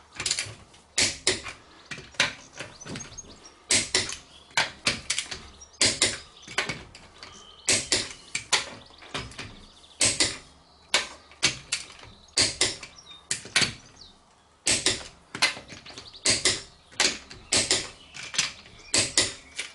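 Click-type torque wrench on car wheel nuts, tightening them to 105 newton metres: sharp metallic clicks, many in quick pairs or small groups, repeating every second or so as the wrench goes from nut to nut.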